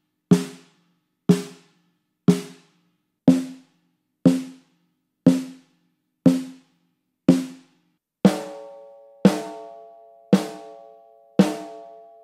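Snare drum struck with a stick in single hits about once a second, close-miked with no EQ, compression or gating. The first eight hits, with a ring dampener on the head and played first in the center and then toward the edge, are short and dry. The last four, center hits on the undampened head, ring on with a sustained tone after each stroke.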